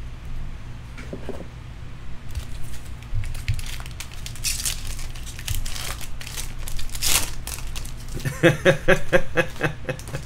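Foil wrapper of a Bowman baseball card jumbo pack being torn open and crinkled, in several sharp rustling bursts. Near the end comes a quick run of light ticks, about six a second.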